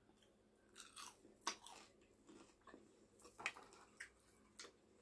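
Close-miked chewing of curly fries: faint, irregular crunches and mouth sounds, about a dozen short ones, the loudest about a second and a half in and again near the middle.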